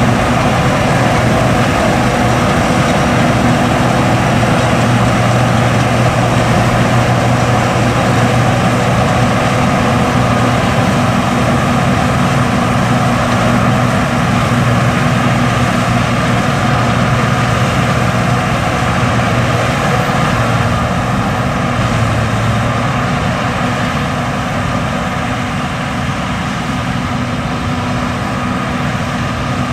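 John Deere S550 combine harvester running steadily while harvesting, a constant engine and threshing-machinery drone. It grows slightly quieter in the last third.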